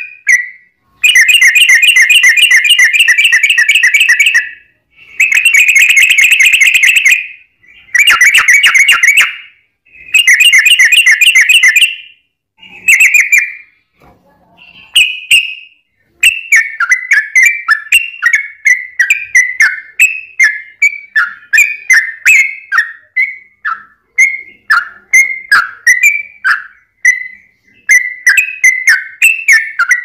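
Caged yellow-vented bulbul singing loudly: a series of long, very fast trills a few seconds each with short breaks between them, then from about halfway a steady string of short, falling notes, about two a second.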